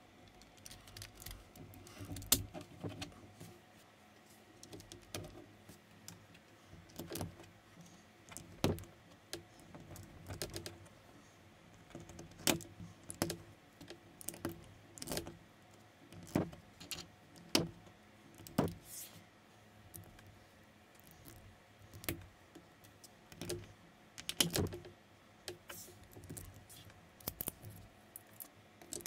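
Plastic LEGO-compatible bricks clicking and rattling as pieces are handled and pressed together, in irregular sharp clicks.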